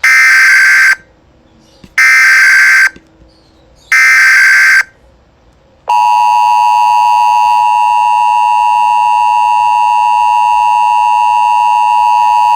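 Emergency Alert System tones: three one-second bursts of the digital SAME header, about two seconds apart. About six seconds in, the steady two-tone EAS attention signal begins and holds.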